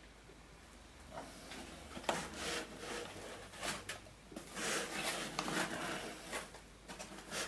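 Intermittent rustling and handling noises, with a sharp knock about two seconds in, as a boxed keyboard and its accessories are unpacked.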